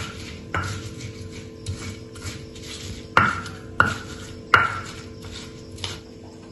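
Kitchen clatter: a handful of sharp clinks and knocks of dishes and utensils, each with a brief ringing note, the loudest three about three to four and a half seconds in, over a steady low hum.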